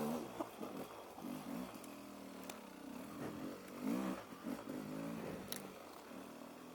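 Off-road motorcycle engine working along a rough trail, its revs rising and falling over and over as the throttle is worked.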